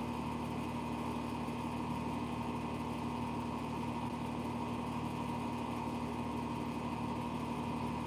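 Steady mechanical hum with a few constant tones, from a motor or engine running evenly without change.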